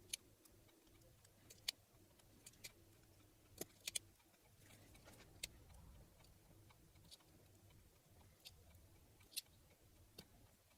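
Near silence with faint, irregular small clicks: steel ball bearings picked up with forceps and set one at a time into grease in a bicycle pedal's bearing race.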